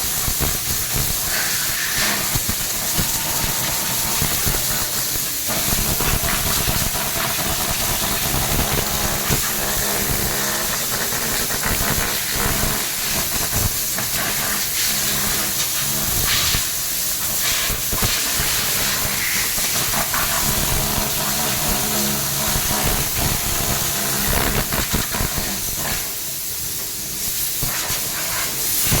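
Compressed-air blow gun hissing steadily as it blasts dust out of a table fan, its strength shifting a little now and then, over a steady low hum.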